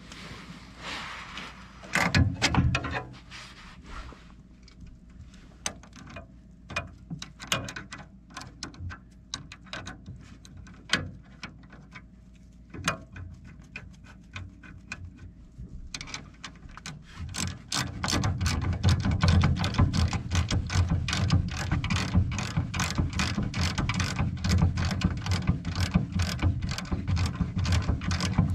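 Ratcheting wrench clicking as it turns a bolt on a snowblower auger. There is a louder metal clatter about two seconds in and scattered clicks at first, then a fast, steady run of ratchet clicks for the last third.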